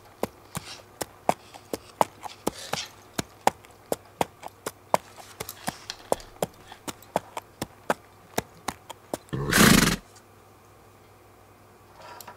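Buttons of a James Donkey USB mouse clicking repeatedly and unevenly, about three clicks a second, stopping about nine seconds in. A brief loud burst of noise follows.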